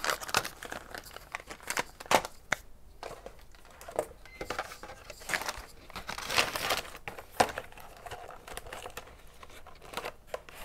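Thin clear plastic food wrapping crinkling and rustling as it is handled, in irregular bursts with short pauses between them.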